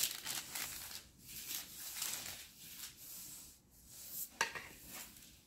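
Plastic fondant smoother rubbing over molded fondant on a cake: a series of short swishing strokes, with a sharp click about four and a half seconds in.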